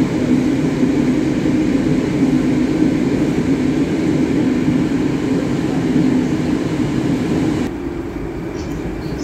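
Metro train running, heard from inside the car: a steady rumble of wheels and motors with a low hum. About eight seconds in, the noise drops abruptly as the train pulls into the station.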